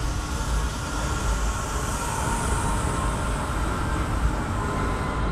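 Tram running past: a steady rumble and hiss, with a thin high whine that grows stronger near the end.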